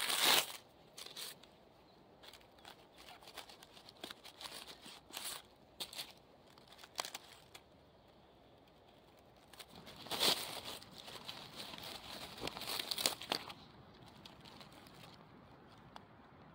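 Dry leaf litter and twigs rustling and crackling under fingers as a mushroom is worked loose and picked. The crackling comes in two bouts, one at the start and one about ten seconds in, with scattered crackles between.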